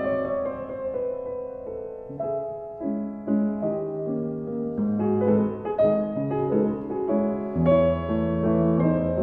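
Background piano music: a melody of struck notes and chords changing about every half second, with a deeper bass note coming in near the end.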